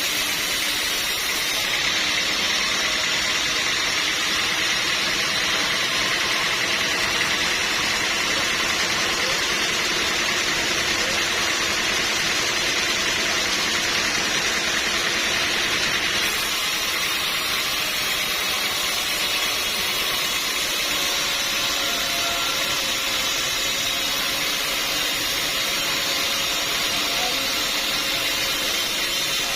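Sawmill saw running steadily as it cuts through a log, with a continuous machine noise that changes slightly about sixteen seconds in.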